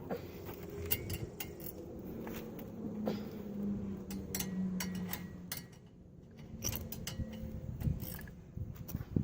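Light metallic clinks, clicks and scrapes of hand tools and brake hardware being handled on the brake assembly.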